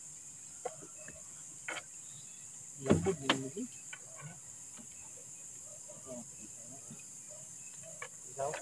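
Night insects chirring steadily at a high pitch, with a few short knocks, the loudest cluster about three seconds in.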